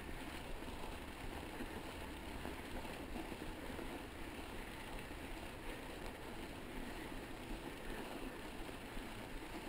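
Mountain bike tyres, a Maxxis Ikon at the rear, rolling over fresh snow with a steady crunching noise.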